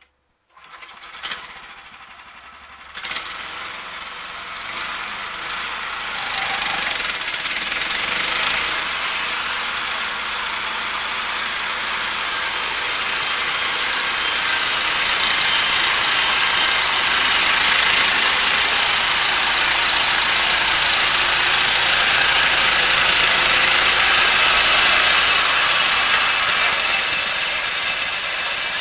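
A small petrol engine on a wood-cutting saw starts up and then runs loud and steady, with two sharp knocks in the first three seconds. It grows louder over the first dozen seconds and then holds.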